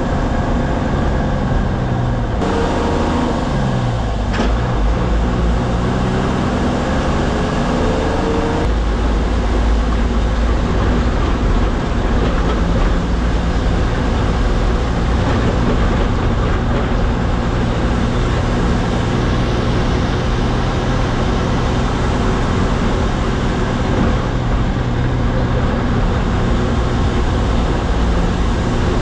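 MSRTC bus diesel engine heard from inside the cab, with road noise. The revs drop about two seconds in and then climb again, and from about nine seconds in it runs at a steady speed with a heavy low rumble.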